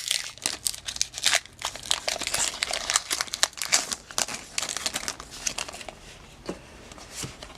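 Foil Pokémon booster-pack wrapper crinkling as it is torn open and handled, a dense run of crackles that dies down about six seconds in.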